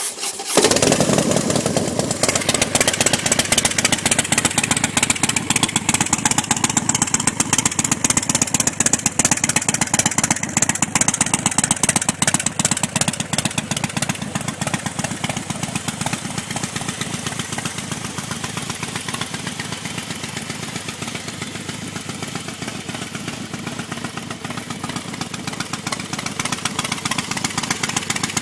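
2007 Harley-Davidson FXST Softail's Twin Cam 96 V-twin, just fired up, idling through new Rinehart 2-into-2 exhaust pipes. The idle is a little louder for the first dozen seconds, then settles lower and steady.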